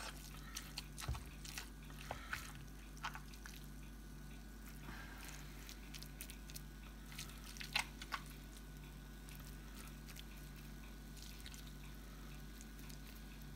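Soft, wet squishes and light clicks of a spoon scooping steak and red wine pie filling from a plastic tub and packing it into a pastry case, with two sharper clicks a little past halfway, over a faint steady hum.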